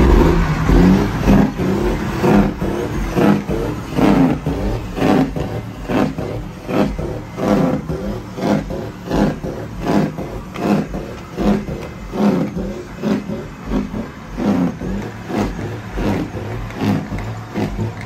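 Big-rig diesel truck engines revved over and over in a steady rhythm, loud throughout.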